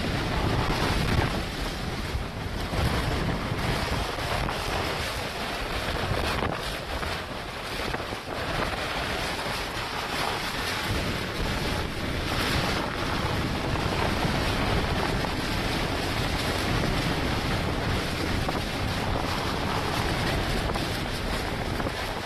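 Hurricane-force wind blowing in a dense, steady rush that swells and eases with the gusts, with the wind battering the microphone.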